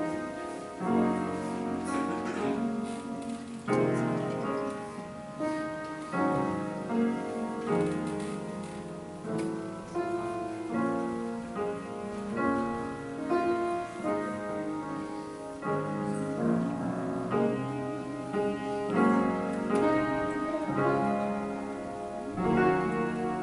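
Piano music: held chords with a melody moving over them, new notes struck every second or so.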